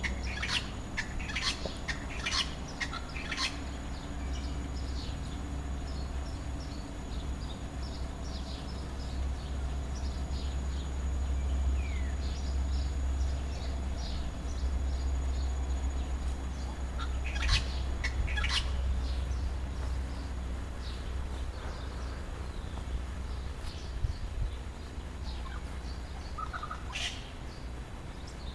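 Wild birds chirping and calling, with many short high chirps throughout and louder bursts of calls at the start, in the middle and near the end, over a steady low rumble.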